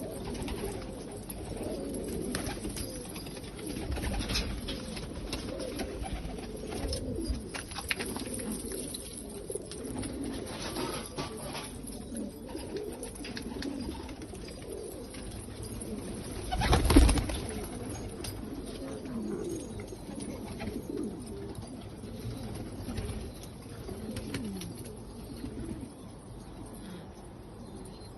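Pigeons cooing, many soft low rolling calls overlapping throughout. About two-thirds of the way through comes one short, loud burst of noise.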